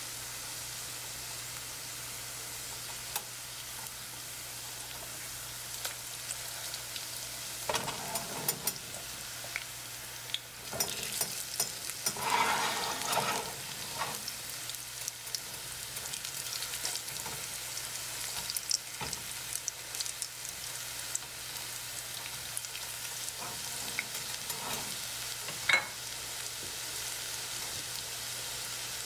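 Potato latkes sizzling steadily as they shallow-fry in hot oil in a stainless steel skillet. A slotted spatula scrapes and clicks against the pan as they are turned, most busily from about eight to fourteen seconds in, with a few single clicks later.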